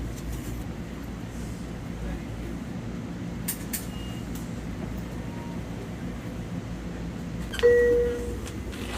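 Long Island Rail Road train car running, a steady low rumble with a couple of sharp clicks partway through. A loud, short, steady electronic tone sounds about a second and a half before the end.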